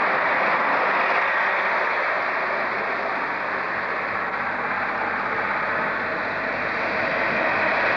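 First-generation diesel multiple unit pulling away, its underfloor diesel engines and wheels making a steady rumbling noise that eases slightly as it draws away.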